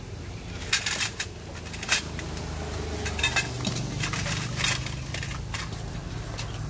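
A run of sharp metallic clicks and clinks, irregular and sometimes a few close together, like small metal parts knocking against each other, over a low steady hum.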